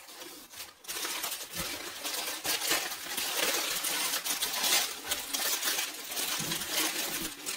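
Pieces of baked clay clinking and rattling against each other as they are handled, a dense clatter that starts about a second in and keeps on to near the end; many of the pieces are broken clay pots and cups.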